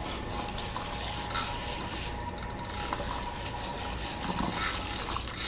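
Tap water running into a sink while a wet bundle of hair is rinsed and worked under the stream.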